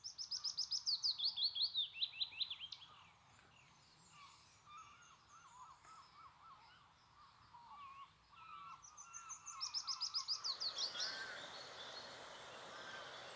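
Songbirds singing: a loud song of quick notes falling in pitch comes twice, at the start and again about nine seconds in, with fainter, lower bird calls in between.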